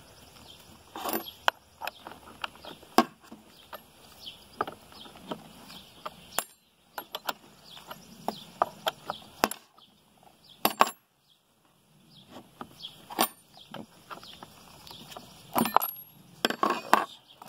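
Irregular metal clicks and clinks of the bar nuts, side cover and combination wrench being handled on a Stihl Farm Boss chainsaw, with a few sharper knocks and short quiet gaps between.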